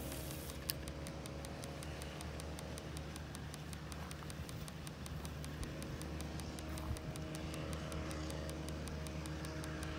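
Steady low engine hum, with one sharp click a little under a second in.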